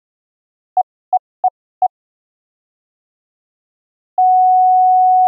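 Morse code (CW) note from a software pure sine-wave oscillator keyed by a CW keyer: four quick dits, the letter H, then a long steady tone starting about four seconds in. It is a single pure mid-pitched tone with no harsh overtones.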